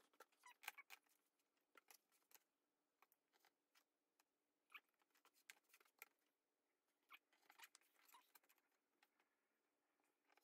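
Very faint, scattered clicks and rustles of a rotary cutter slicing through webbing strap along a clear ruler on a cutting mat, with the strap being handled.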